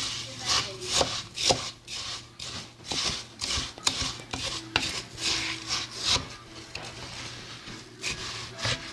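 Irregular rough scraping and rubbing strokes, roughly one or two a second, from a utensil working food in a kitchen.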